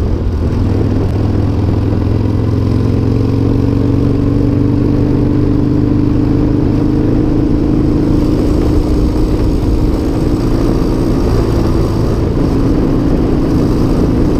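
The air-cooled V-twin of a 1996 Harley-Davidson Sportster 1200 Custom running under way at road speed. Its note climbs slowly as the bike gathers speed, drops a little about eleven seconds in, then holds steady.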